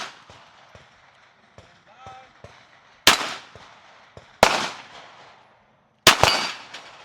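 Glock pistol shots fired one at a time at a steady pace: single shots about three and four and a half seconds in, then a close pair about six seconds in, each sharp crack trailing off in echo.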